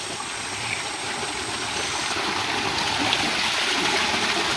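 Flowing water rushing and splashing, a steady noise that grows slowly louder.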